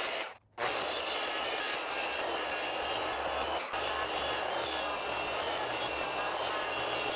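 Handheld circular saw ripping lengthwise along the edge of a 2x8 board, blade set deep to cut a notch. A steady whining cut, breaking off briefly about half a second in.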